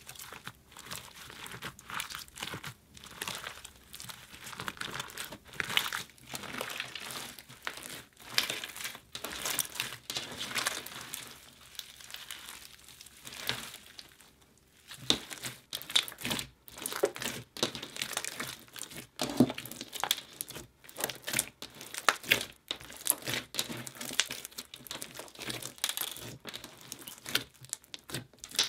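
Hands kneading, stretching and pressing a large batch of clear slime mixed with clay, paint, makeup and sprinkles, giving an irregular stream of short clicks and crackles with a brief lull about halfway through.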